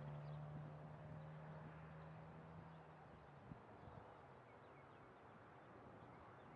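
Near silence: quiet open-air ambience with a low steady hum that stops about halfway through, and a few faint bird chirps.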